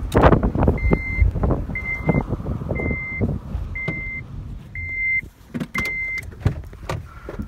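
Honda car's dashboard warning chime beeping six times, about once a second, a steady high tone each time, with knocks and rustling from people moving inside the car.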